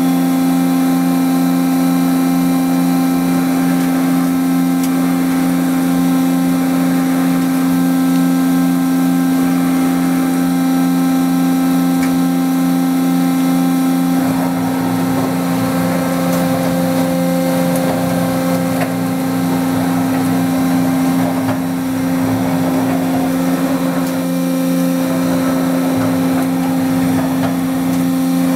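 Mazak Integrex 200 multi-axis CNC turning and milling center running, a steady machine hum with a low drone. About halfway in, a rougher, uneven noise joins the hum.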